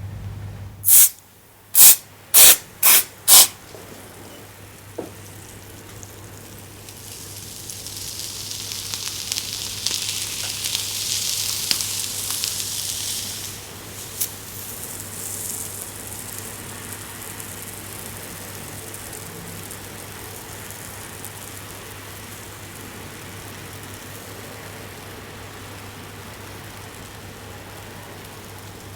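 Hands working on a head: five quick, sharp strikes about half a second apart, then the rustling hiss of hands rubbing through hair for several seconds. After that comes a fainter, steady rustle. A low steady hum runs underneath.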